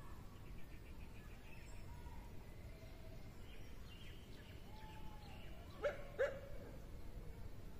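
Animal calls over a steady low outdoor rumble: faint, scattered short calls, then two short, loud calls in quick succession about six seconds in.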